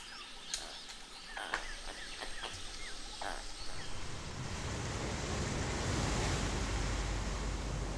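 Forest ambience with short chirping bird calls and a few sharp clicks, giving way after about four seconds to the steady wash of surf breaking on a beach.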